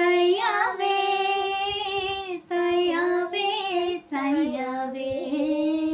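A woman and a young boy singing a Hindi song together without accompaniment. They hold long, wavering notes in three phrases, with short breaks about two and a half and four seconds in.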